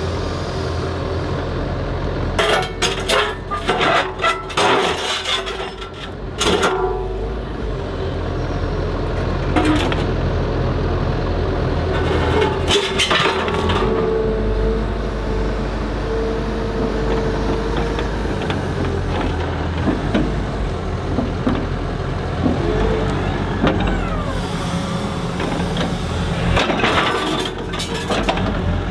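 Komatsu HB 215 LC hybrid excavator running steadily, with its TMK MultiGrab M grapple knocking and scraping against granite boulders as it handles them, in several clusters of clatter.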